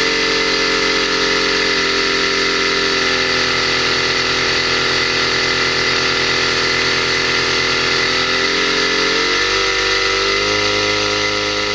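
PWM-driven HHO electrolysis cell and its MOSFET controller running under load: a steady high whine at about 2 kHz, the PWM switching frequency, over a steady rushing hiss. The lower tones shift up in pitch twice near the end.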